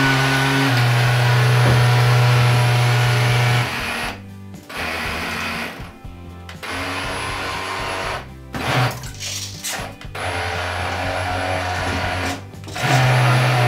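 Small electric propeller motor of a homemade RC bait boat running in water. Its pitch steps down about a second in, and it is throttled off and back on several times, cutting out briefly about four, six, eight and twelve seconds in before running loud again near the end. Run from a 7.4 V 2S battery, the motor drops in revs when loaded by the water.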